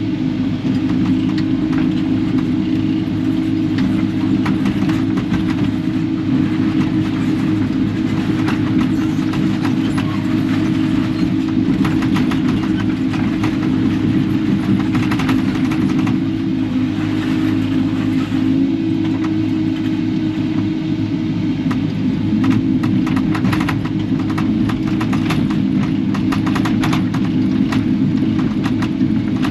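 Kubota KX080-4 excavator's diesel engine running steadily, with many short clanks and scrapes of scrap metal and debris being dug and pushed, growing denser in the second half.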